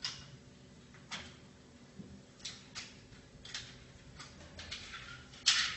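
Plastic egg-tray containers clicking and knocking as they are unclipped and lifted off an egg incubator's turning gearbox: about ten short, sharp clicks at uneven intervals, the loudest near the end.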